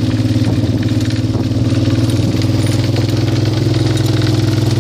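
ATV (four-wheeler) engine idling steadily at close range.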